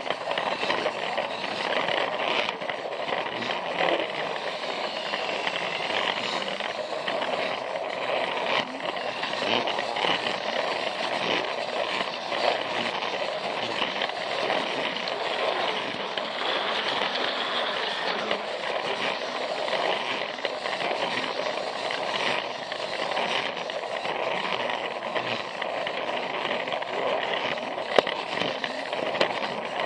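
Battery-powered Plarail toy train running steadily along plastic track, a continuous rattle with many small clicks from its motor, gears and wheels, and one sharp click near the end.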